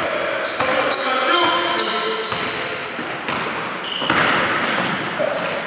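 Basketball bouncing on a hardwood gym floor, with echoing voices and short high squeaks through the hall.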